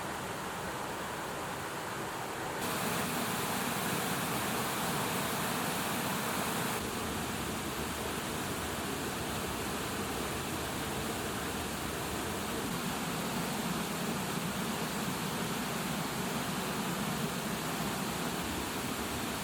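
Raw sausages grilling over a bonfire: a steady sizzling hiss of fat and burning wood. It becomes louder and brighter about two and a half seconds in and drops back about seven seconds in.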